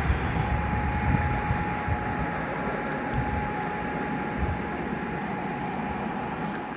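Steady outdoor city noise of distant traffic and rooftop machinery, heard from high up, with a thin steady whine running through it from just after the start.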